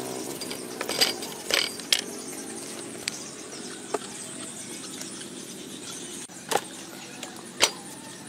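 Scattered sharp knocks and clicks, about seven in all, over a steady background hum.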